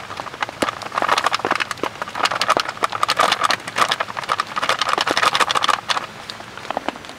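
A plastic packet crinkling and rustling as dry upma mix is shaken out of it into a bowl. It comes in a dense run of crackles from about a second in and dies down about six seconds in.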